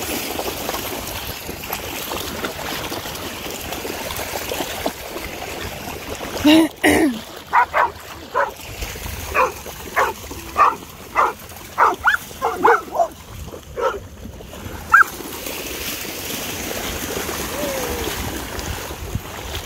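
Dogs splashing as they run through shallow seawater. From about six seconds in, a dog barks in a quick string of about fifteen barks over some eight seconds, then the splashing goes on alone.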